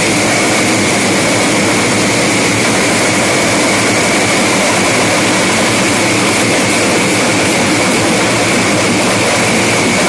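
Pad band drumming: many large steel-shelled drums and smaller drums beaten together at full volume, a dense, unbroken wall of sound with a steady high tone running through it.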